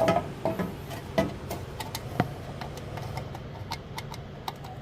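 Small hard objects being handled, giving scattered light clicks and taps. There are a few sharper knocks in the first couple of seconds, over a steady low hum.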